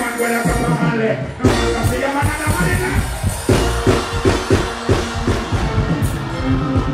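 Live dancehall stage show over a loud PA: a backing track with drums and deep bass, with a performer's voice on the microphone. The bass cuts out for about a second near the start and comes back in with a hit.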